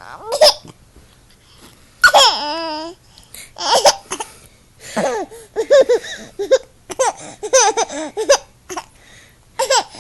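A child laughing in several bursts of pulsed laughter, with a long wavering squeal about two seconds in, in reaction to fake sneezes.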